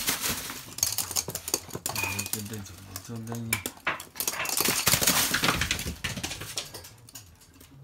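Inflated plastic air-cushion packaging rustling and crackling as a small toy poodle runs through and over it, loudest about five seconds in.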